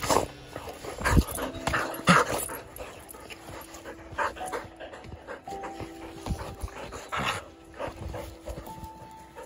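Border collies playing rough at close range: irregular short dog sounds and scuffles, the strongest near the start and around one, two and seven seconds in.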